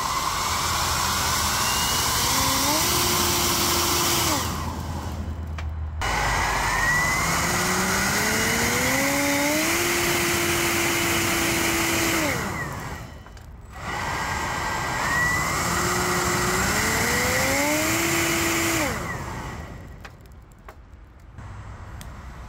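A 3D-printed ducted fan driven by a brushless motor spins up three times. Each run is a whine that climbs in pitch and then holds steady at full speed over a loud rush of blown air. Each run cuts off and falls away, and the third ends about three-quarters of the way in.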